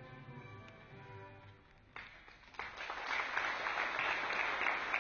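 The closing bars of a national anthem end quietly. About two and a half seconds in, an audience breaks into applause, much louder than the music.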